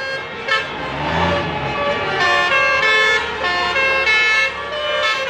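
Bus telolet horn playing a tune of stepped, changing notes. A deep engine rumble swells under it about a second in.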